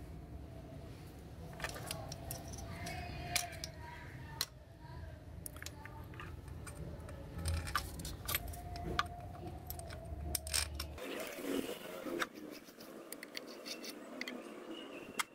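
Irregular light metallic clicks and clinks of bolts and a small hand tool against the throttle body as it is fitted and bolted back onto the intake of a Toyota 1SZ-FE engine.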